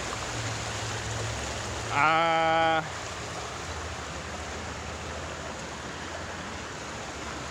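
Steady rushing of water along a seawall after a storm surge. About two seconds in, a man gives one short, level, drawn-out 'uhh' as he hesitates.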